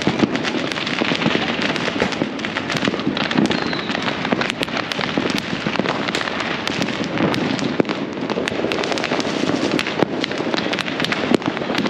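Fireworks and firecrackers going off all over a city at once: a continuous dense crackle with many sharp cracks and pops every second, without a pause.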